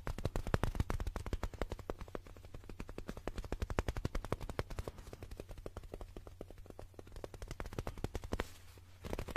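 Very fast fingertip tapping close to a microphone: a dense, rapid run of sharp taps. The taps thin out in the second half, pause briefly about eight and a half seconds in, then start again just before the end.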